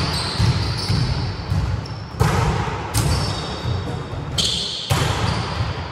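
Volleyballs being struck and bouncing on a wooden sports-hall floor: sharp slaps that echo round the hall, the loudest about two, three and five seconds in, with players' voices in the background.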